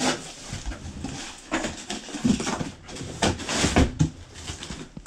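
Cardboard and plastic packaging rustling and crinkling, with a few knocks, as a box of coilovers is unpacked by hand.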